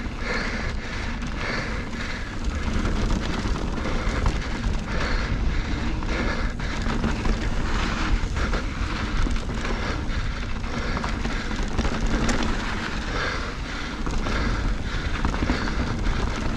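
Mountain bike descending a loose, stony dirt trail: knobbly tyres crunching over gravel and stones with the bike rattling, over a constant low rumble of wind on the microphone.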